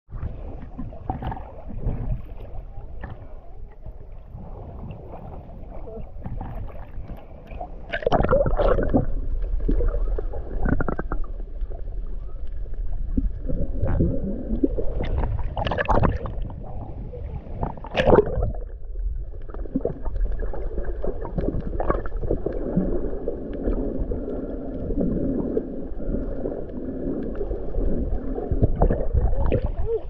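Sea water sloshing and splashing against a camera held at the surface, with muffled, rumbling sound as it dips below the water. Several louder splashes stand out over the steady wash.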